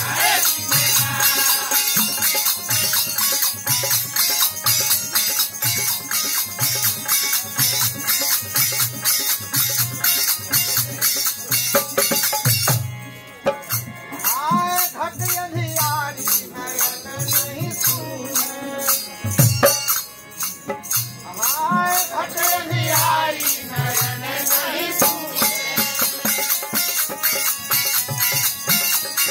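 Devotional bhajan music: dholak drum beats about once a second under a fast, continuous clinking of small brass hand cymbals. The percussion breaks off briefly about halfway in, and a voice sings over the accompaniment through the middle part.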